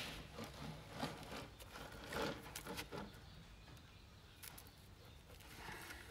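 Faint small clicks and rustles of stiff steel trace wire and a metal crimp sleeve being handled in the fingers, a few scattered ticks over a low steady hum.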